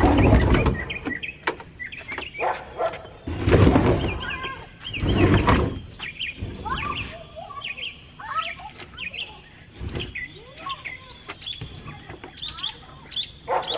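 Small birds chirping repeatedly, short rising and falling calls, with a few louder scraping, bumping noises of a wicker couch being shifted on a wooden deck at the start and again around four and five seconds in.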